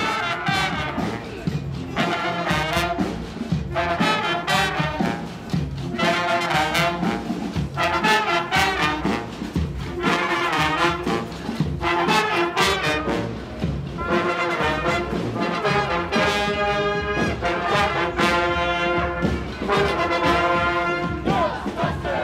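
Street brass band playing live: trumpets and trombones in short repeated phrases over a steady beat.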